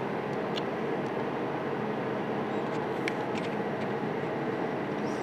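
Steady machinery hum and hiss of a plastics factory floor, with a few faint ticks.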